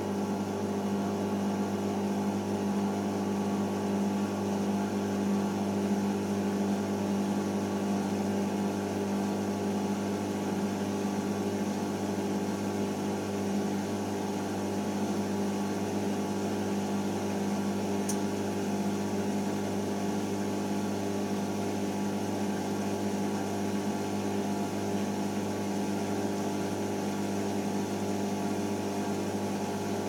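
Hoover Optima OPH714D washing machine on its final spin, the drum turning at a steady speed with the motor giving a steady whine.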